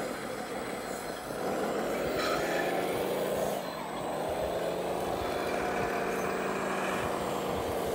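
Radio-controlled wheel loader running, a steady engine-like drone with a pitched hum. It gets louder about a second and a half in and dips briefly near the middle.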